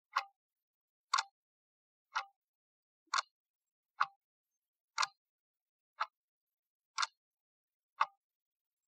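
Clock-tick sound effect, one sharp tick a second, nine ticks in all: the timer's reminder marking the last ten seconds of the countdown.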